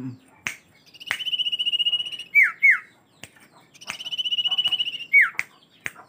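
Common iora (Aegithina tiphia) singing: twice a rapid trill held on one high pitch for about a second, each followed by loud down-slurred whistles, two after the first trill and one after the second. Sharp clicks come now and then between the phrases.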